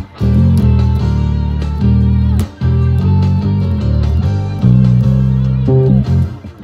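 Electric bass guitar plucked with the fingers: a line of low held notes that changes pitch every second or so, with short breaks about two and a half seconds in and near the end.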